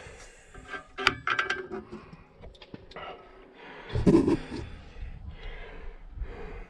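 Small metal washers and hardware clinking as they are handled, with a sharp, ringing metallic clink about a second in and lighter clicks after it. A louder low thump and rustle of handling comes about four seconds in.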